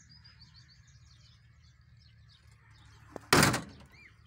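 Faint bird chirps, then about three seconds in a faint click and a single loud clunk from the door of a 1985 Toyota pickup being handled.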